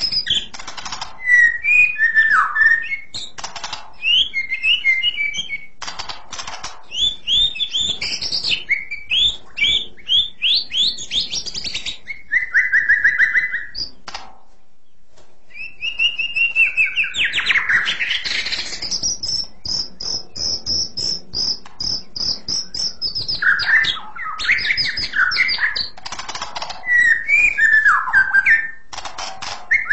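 White-rumped shama singing a varied song of rapid whistled phrases, broken by a short pause about halfway through. A little later it holds one long, high, steady note for several seconds before going back to quick varied phrases.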